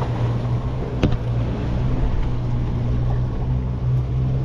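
Twin Mercury outboard motors running with the boat under way: a steady low hum under wind and water noise. One sharp knock about a second in.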